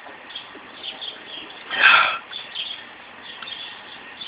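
Small birds chirping faintly in the background, with one short loud vocal exhale from the man about two seconds in as he finishes chugging a can.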